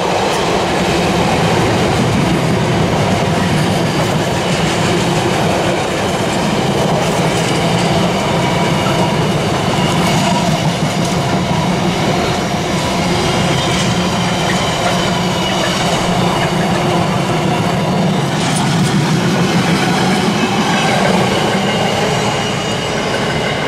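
A long freight train's wagons rolling past at speed, a steady loud rumble with the wheels clattering over the rail joints.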